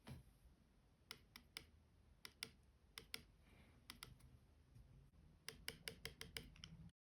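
Faint, irregular small clicks and taps of an iPhone 13 being handled during a repair, coming in short clusters with a quick run of clicks near the end.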